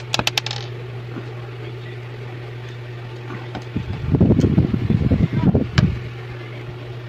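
Handling noise of a smartphone's SIM card tray being slid out and set down on a tabletop, with a quick run of small clicks at the start and a rustling cluster of clicks and taps about four to six seconds in. A steady low hum runs underneath.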